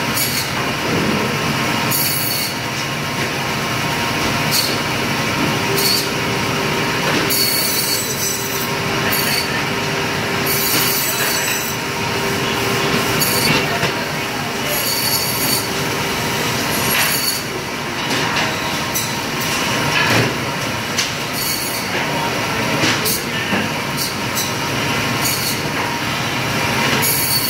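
Large vertical meat bandsaw running steadily while its blade cuts lamb carcass through bone and meat, each of the repeated cuts bringing a brief high-pitched rasp.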